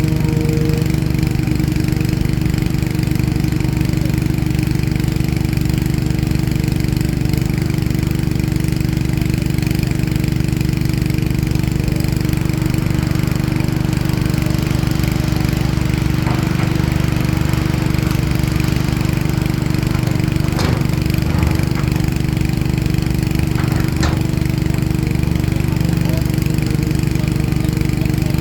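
CAT excavator's diesel engine running at a steady speed, with a few faint knocks in the second half.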